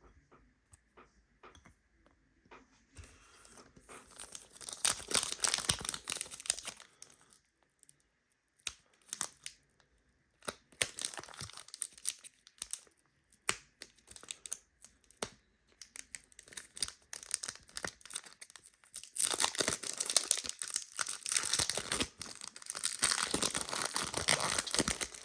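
Panini Prizm basketball card packs being torn open, their wrappers crinkling and tearing in three bouts, the longest near the end.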